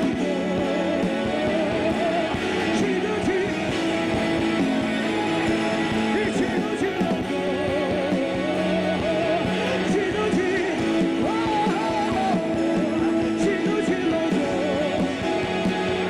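Live worship music: a woman singing long, wavering notes with vibrato over guitar and band accompaniment.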